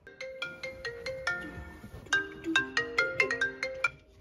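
Smartphone ringtone playing a quick melody of short, bright pitched notes, which cuts off near the end as the phone is picked up.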